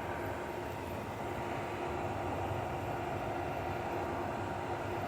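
Hisense dehumidifier running steadily, its blower fan moving air over a humming compressor.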